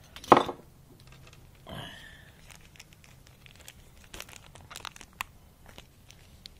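A paper parts packet being crinkled and torn open by hand, with one loud sharp rustle just after the start and scattered small crackles after it.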